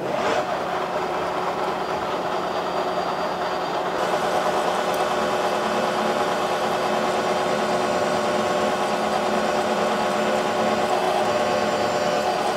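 Clausing metal lathe running, its carbide tool turning down a bar of hard steel: a steady machining sound with several fixed tones, a little louder about four seconds in.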